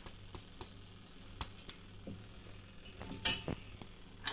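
Cashew nuts tipped from a steel strainer into an air fryer basket and spread by hand: scattered light knocks and clinks of nuts and metal, with a sharper clatter about three seconds in.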